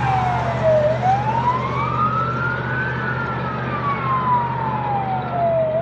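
Fire engine siren in a slow wail: the pitch falls, rises to a peak about three seconds in, then falls slowly again. A steady low rumble runs underneath.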